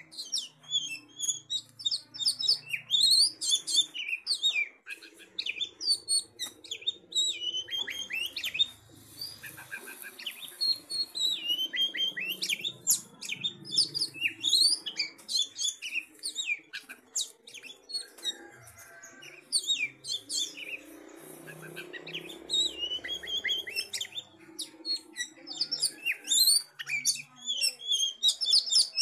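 Oriental magpie-robin (kacer) singing a fast, varied run of high chirps and whistles, broken by a couple of short pauses. This is a calling song, used to make another magpie-robin answer.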